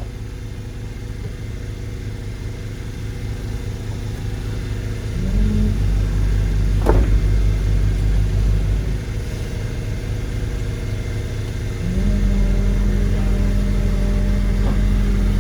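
Engine of heavy construction equipment running under load, revving up to a higher, louder pitch about a third of the way in, easing back, then revving up again near the end. A single sharp clank about halfway through.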